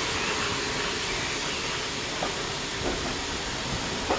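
Steady hiss of steam from a steam locomotive standing with its train, with a few faint clicks.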